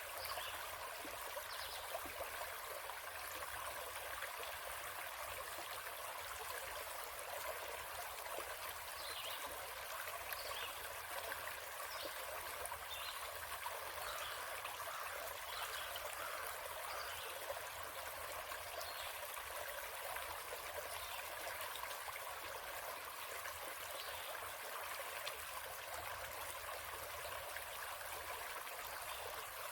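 Forest stream flowing steadily over rocks, an even rushing and trickling of water with no pauses.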